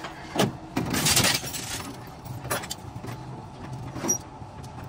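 Bodywork workshop noise: several sharp metal knocks and clatter, with a harsh rushing burst lasting about a second shortly after the start, over a low steady hum.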